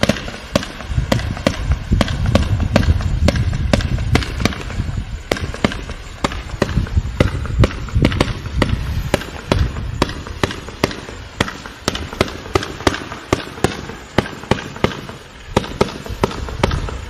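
A 49-shot consumer firework cake firing 0.8-inch tubes of blue go-getter (moving star) shots: a rapid, even string of launch pops, about three a second, with a continuous hiss underneath.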